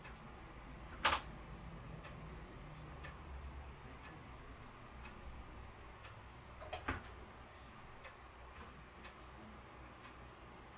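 Faint, irregular small ticks and clicks over a low hum, with a sharp click about a second in and a smaller double click near seven seconds.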